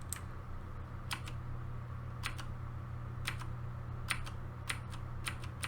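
Single key presses on a Razer BlackWidow Ultimate 2013 mechanical keyboard with clicky Cherry MX Blue switches: about seven sharp clicks, roughly one a second, over a steady low hum. They are repeated Fn+F12 presses, each stepping up the keyboard's backlight brightness.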